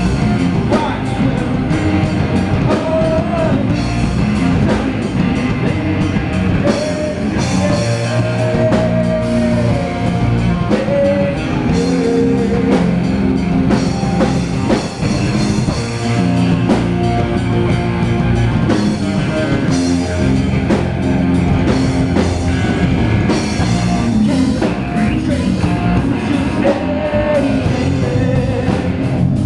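Rock band playing live: electric guitar and drum kit.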